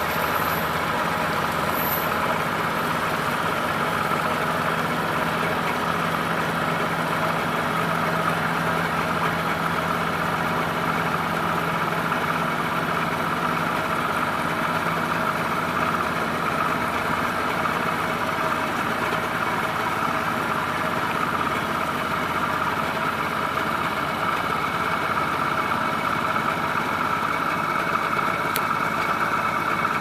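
A log barge's engine running steadily as the barge backs away from shore. A low hum within it fades out about halfway through.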